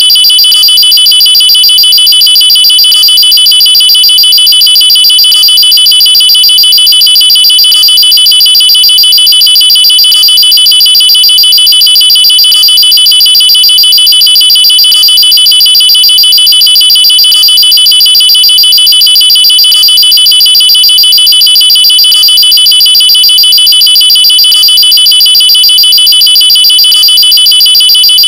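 Looped electronic nuclear-alarm tone: a loud, steady, high-pitched, rapidly pulsing alarm that holds one pitch without rising or falling, with a faint tick about every two and a half seconds.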